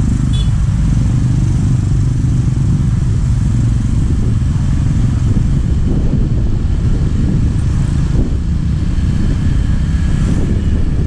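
Motorcycle engines running in dense, slow-moving traffic, heard from a moving motorcycle, with a steady low wind rumble on the microphone.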